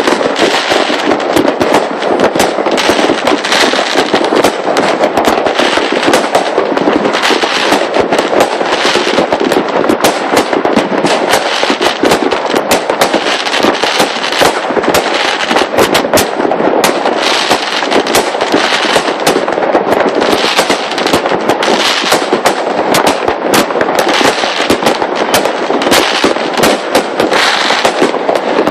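New Year's fireworks going off in a dense, continuous barrage: many bangs, pops and crackles overlapping with no pause.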